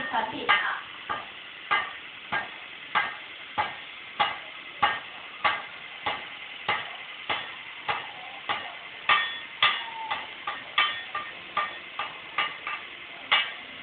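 Machine hammer in a knife forge striking steel at a steady beat, about one and a half sharp metallic blows a second, with a few lighter taps between the blows in the second half.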